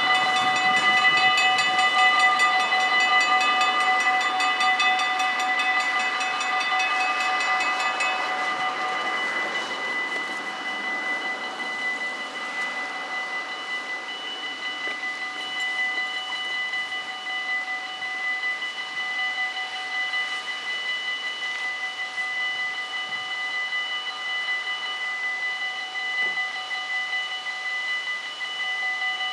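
Dutch level-crossing warning bells ringing rapidly, several bells at different pitches together, warning of an approaching train as the half-barriers come down. They are loudest for the first eight seconds or so, then go on more softly.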